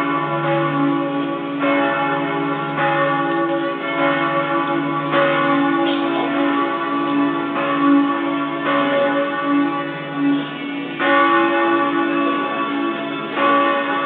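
Several church bells pealing together for a festive service, fresh strikes overlapping about once a second over a deep, lingering hum that fades about ten seconds in.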